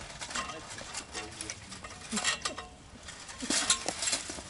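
Rustling and scuffing as a person clambers over a chain-link fence and steps through dry leaf litter, in irregular bursts that are loudest past the middle.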